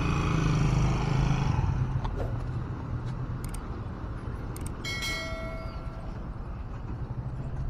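Street traffic ambience with a vehicle engine running loudest in the first two seconds, a few sharp clicks, and a short metallic bell-like ring about five seconds in.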